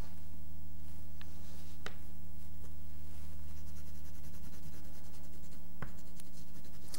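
Oil pastel stick scratching and rubbing on paper, with a few sharp ticks, over a steady low electrical hum.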